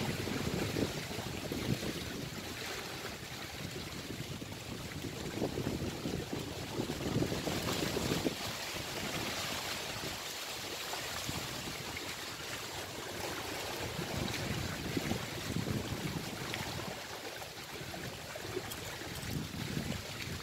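Wind buffeting the microphone in uneven gusts over small sea waves washing against shoreline rocks.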